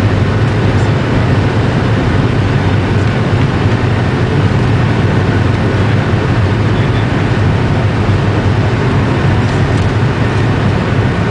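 Jet airliner's engines running at takeoff power, heard inside the cabin as a loud, steady rumble with an even rushing hiss over it.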